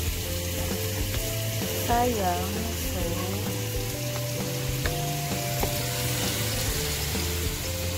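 Diced pork sizzling in hot olive oil in a wok, a steady frying hiss like rain.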